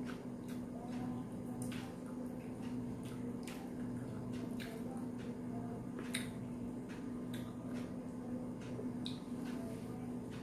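Wet clicks and squishes of eating rice and chicken by hand: fingers pressing food against a plate and chewing, at scattered irregular moments over a steady low hum.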